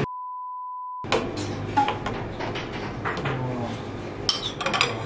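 A steady 1 kHz test tone sounds for about a second and cuts off abruptly. Then plates, bowls and cutlery clink and knock on a table as dishes are set down, with a cluster of sharp clinks near the end.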